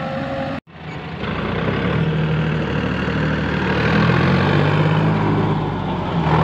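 Sonalika tractor's diesel engine working under load as it pulls a loaded trailer through mud, running steadily and growing louder after the sound drops out for a moment just over half a second in.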